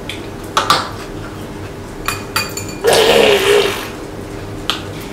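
Chopsticks and spoons clinking against ceramic dishes and bowls during a meal: a few sharp clicks, two of them ringing. About three seconds in comes a louder, rough sound lasting about a second, with a wavering pitch through it.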